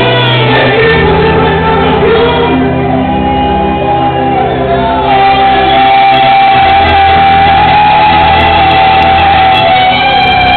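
Loud worship music in a large hall: a band with a pulsing bass under voices singing and shouting, with one long held high note through the second half.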